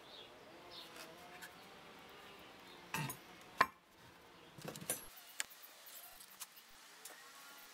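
Quiet handling of pallet boards and a glue bottle: a few light knocks and clicks as boards are laid onto a glue stack, the sharpest about three and a half seconds in.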